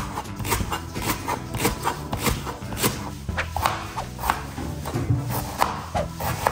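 Chef's knife slicing leek and ginger on a plastic cutting board, with sharp knife strikes coming two or three a second over background music.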